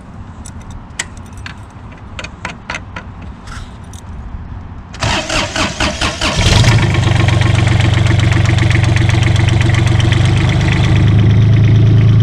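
A few scattered clicks, then the paving machine's Kubota three-cylinder diesel engine cranks on the starter for about a second and a half and catches. It settles into a steady idle, and near the end it speeds up slightly and gets louder.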